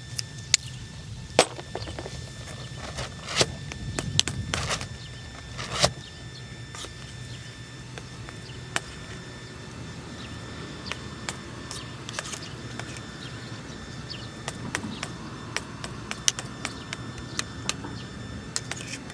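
Metal spoon clinking and scraping against a metal camping pot while thick tomato curry is stirred. The clinks are sharp and frequent for the first six seconds, then fainter and sparser, over a low steady hum.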